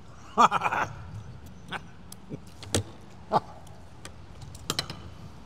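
A man's short, pleased voiced murmur as he chews a mouthful of roast beef, then a handful of separate clicks and clinks of a metal fork and knife against a plate.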